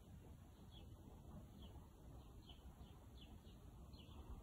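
Faint small-bird chirping: short falling notes repeated evenly about twice a second, over a low outdoor background hum.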